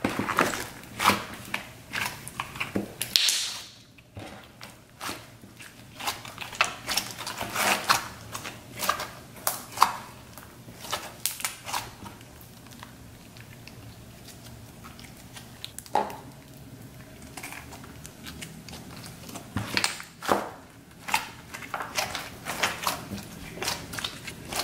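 Yellow glitter slime being squeezed, pressed and kneaded by hand, giving off rapid wet clicks and pops. They come in quick clusters, thin out for several seconds in the middle, then pick up again.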